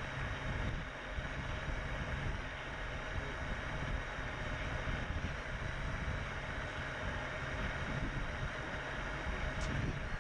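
Onboard audio of a long-range FPV quadcopter in steady flight: a steady drone of motors and propellers under rushing wind on the microphone.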